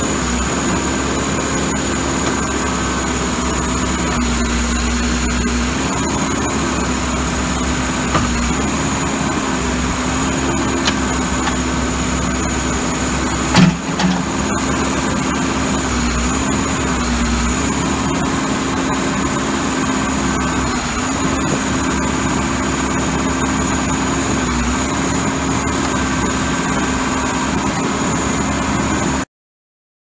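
Case 580SM backhoe's 95 hp Cummins diesel running steadily while the backhoe digs, its pitch dipping briefly several times as the digging loads it. One loud clunk about halfway through, and the sound stops suddenly near the end.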